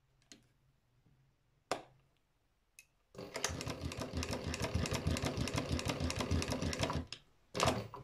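Sewing machine doing free-motion embroidery, stitching rapidly for about four seconds as the fabric is guided by hand. A few single clicks come before the run, and a short second burst of stitching comes near the end.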